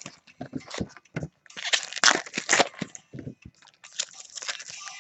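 Trading card packs being opened and handled: wrappers tearing and crinkling in irregular, crackly rustles.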